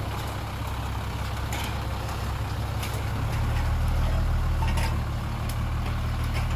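Heavy diesel engine of earthmoving machinery running steadily, with a low drone that grows louder about three seconds in. A few faint clicks or knocks over it.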